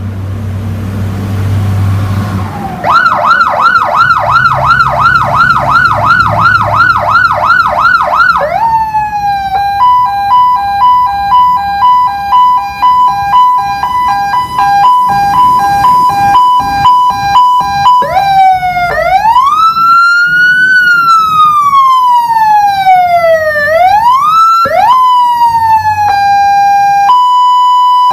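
Electronic emergency-vehicle siren stepping through its tones after a low hum at the start. From about three seconds in it plays a fast yelp of about three sweeps a second, then a high-low two-tone alternation, then a slow wail rising and falling in pitch, and near the end steady alternating high-low tones again.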